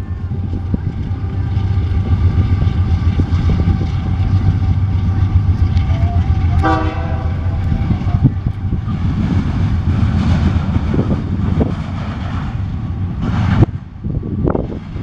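CSX intermodal freight train passing with a steady low rumble. A locomotive air horn sounds held tones over it that fade out about halfway, leaving the rumble of the train.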